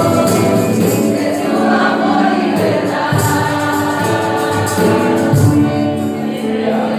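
A group of women singing a Spanish-language worship song together, with acoustic guitar accompaniment.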